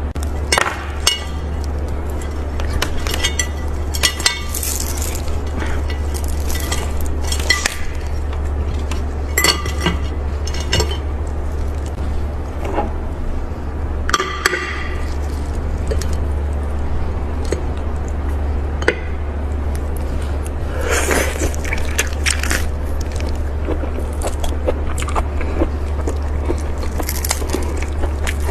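Seafood being eaten and handled at a table: irregular clinks and clicks of dishes and utensils with short crackling, rustling bursts, over a steady low hum.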